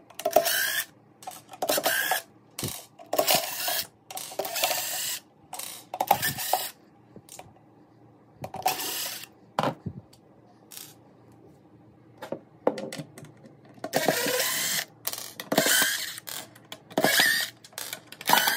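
Cordless power driver running in repeated short bursts as it backs screws out of the back panel of a Sony wireless subwoofer.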